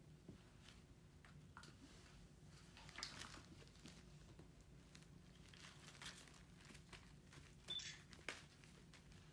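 Faint crinkly rustling of metallic tinsel as a kitten paws and bats at a tinsel-covered graduation cap, in a few scattered short bursts over a low steady hum.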